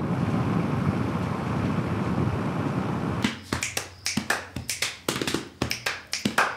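Steady road and wind rush from a moving vehicle, which stops suddenly about three seconds in. Then come about a dozen sharp, irregular clicks over the last three seconds.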